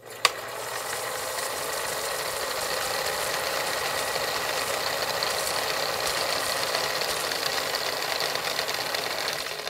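Film projector sound effect: a steady mechanical whirr and rattle, with one sharp click right at the start.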